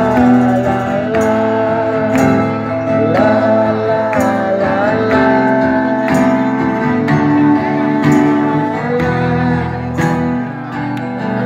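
Live band music from the stage: acoustic guitar over a steady beat, with a melody line that slides up and down in pitch.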